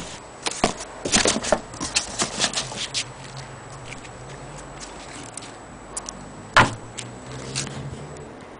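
Hard objects clattering in a cardboard box as it is packed and its flaps folded shut: a quick run of clicks and knocks in the first three seconds. Then a low steady hum, with one loud knock about six and a half seconds in and a smaller one a second later.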